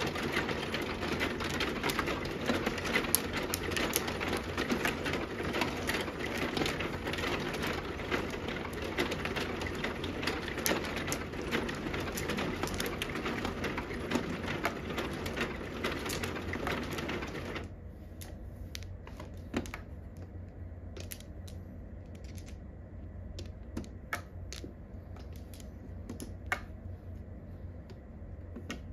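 Mahjong tiles clicking as they are drawn and discarded on an automatic mahjong table, over a dense rattling clatter from the table's shuffling mechanism that stops abruptly about 18 seconds in. After that, only separate tile clicks are left.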